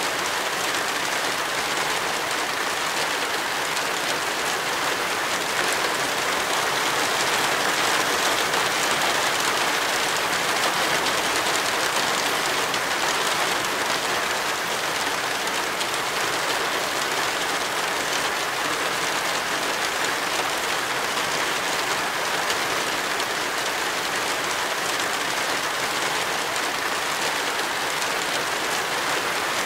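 Heavy tropical rain, a dense steady hiss of drops that holds at an even level throughout.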